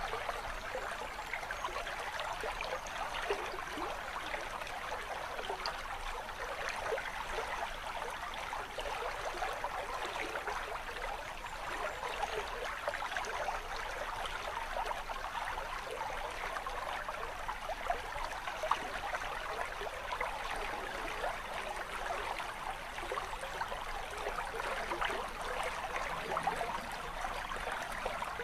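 Small brook trickling and babbling over stones and a low stacked-stone waterfall, a steady splashing.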